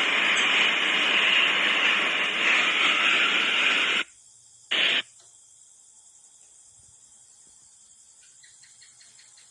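Loud, steady rushing storm noise of wind and rain that cuts off abruptly about four seconds in, returns for a brief burst, then gives way to faint insect chirping.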